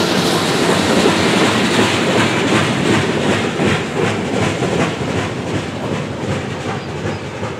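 Steel coal hopper cars of a freight train rolling past, wheels rumbling and clattering over the rail joints in a regular clickety-clack, easing off slightly toward the end.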